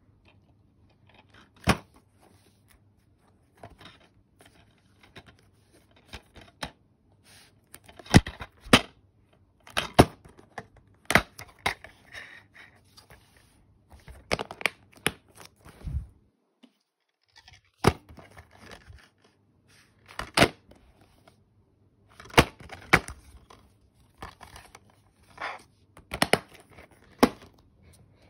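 Plastic DVD cases being handled, opened and snapped shut: a string of sharp plastic clicks and clacks at uneven intervals, with rubbing and sliding between them.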